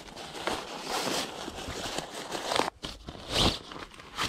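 Folding camping chair being pulled out of its nylon carry bag: the fabric rustles and swishes as the chair's legs slide out, with dry leaves crunching underfoot. The loudest swish comes about three and a half seconds in.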